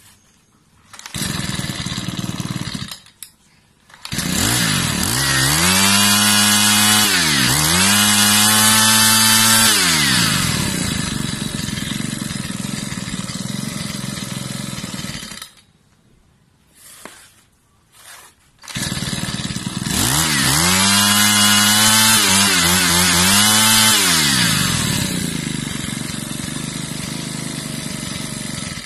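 Makita 25cc four-stroke brush cutter engine, run as a bare power head: it fires briefly, then runs and is revved up and down twice before dropping to idle and cutting off. After a pause of a few seconds it runs again, revved twice more, then idles until it stops.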